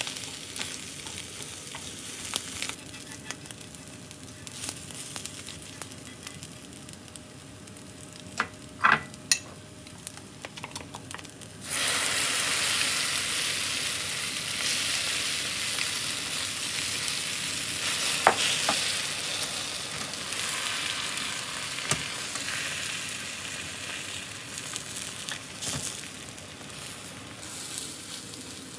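Egg sizzling in a hot square cast-iron tamagoyaki pan: a low sizzle with a few sharp taps about nine seconds in, then a sudden loud sizzle just before the twelve-second mark as a fresh layer of beaten egg mixture is poured into the pan, easing off slowly as it sets.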